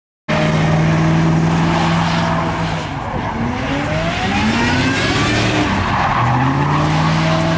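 Pickup truck V8 held at high revs during a burnout, rear tyres spinning and squealing; the engine note drops and climbs again about midway. The sound cuts in abruptly just after the start.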